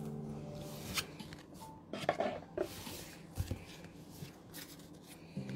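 Pokémon trading cards being handled and laid down: a few faint clicks and rustles, spaced out, about a second apart.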